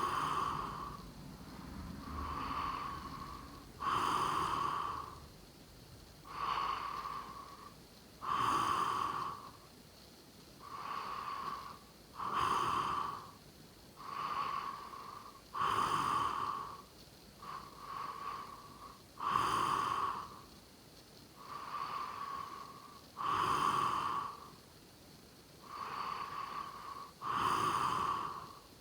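A sleeping person snoring in a steady rhythm: a louder snore about every four seconds, with a softer breath sound between each.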